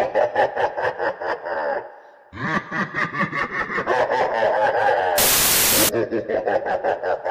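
A voice laughing in quick, evenly spaced pulses, with a short break about two seconds in. About five seconds in, a brief burst of static noise cuts across it before the laughing resumes.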